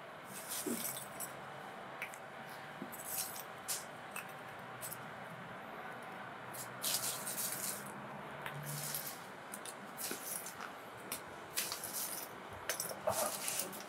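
Lumps of charcoal clinking and knocking as they are dropped by hand into a clay charcoal stove, a dozen or so short clatters at irregular intervals, with a plastic bag rustling now and then.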